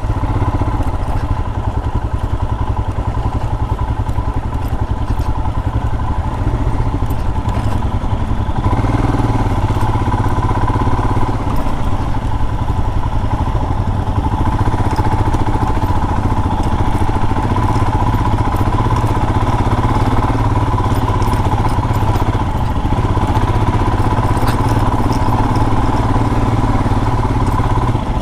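Royal Enfield Himalayan's single-cylinder engine running steadily while the bike is ridden along a dirt trail, with occasional faint knocks and clatter from the rough ground.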